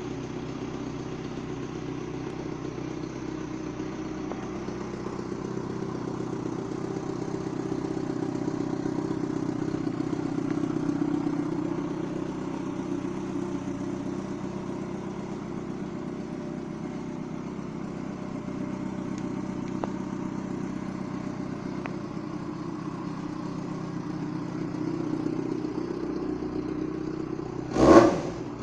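Yamaha FZ6 600 cc inline-four on its stock exhaust, idling steadily and loud, with a sharp throttle blip right at the end.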